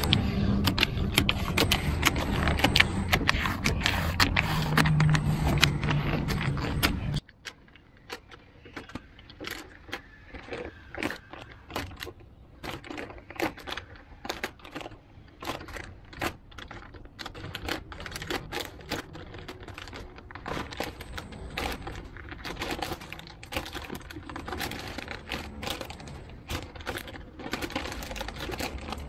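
Vinyl advertising sticker being peeled by hand off a car door's paint, the adhesive letting go in dense, irregular crackles and ticks. For the first seven or so seconds it is louder with a steady low hum underneath, then it drops suddenly and the crackling goes on more quietly.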